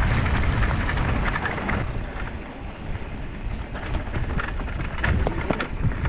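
Wind buffeting the microphone over the rumble of mountain-bike tyres rolling on a dirt and gravel trail, with scattered clicks and knocks from stones and the bike.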